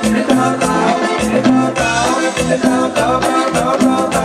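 Loud Latin dance music with a steady beat and a repeating bass line, played over a party DJ sound system.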